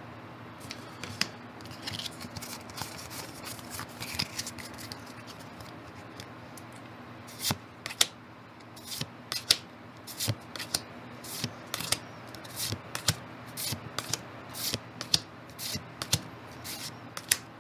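Pokémon trading cards being flipped through one at a time: sharp flicks and slides of card stock, sparse at first and coming quickly one after another in the second half. A faint steady low hum runs underneath.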